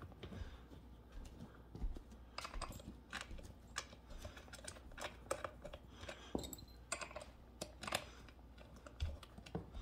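Faint, irregular small clicks and taps of metal screws and chair parts being handled as the armrest screws are started by hand.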